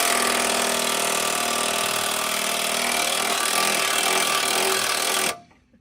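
A power tool running steadily at full speed, a loud hiss with a buzzing hum under it, then cut off abruptly near the end.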